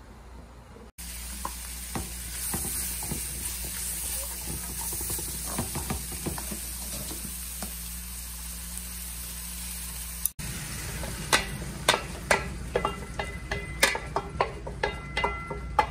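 Vegetables sizzling in a hot wok as they are stir-fried, with light clicks of chopsticks turning them. About ten seconds in the sizzle stops and a quick run of sharp metallic clinks follows as a metal ladle scrapes and taps a steel bowl and the wok while sauce is poured in.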